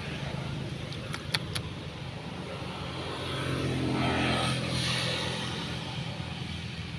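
A motor vehicle's engine running, growing louder toward the middle as it passes and then fading, with a few sharp clicks a little over a second in.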